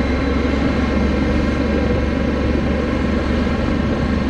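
Honda Africa Twin CRF1100 DCT's parallel-twin engine running on the overrun in second gear down a steep slope, at a steady, unchanging pitch with its engine braking at the maximum setting. The engine braking is not enough to hold the bike back on the gradient.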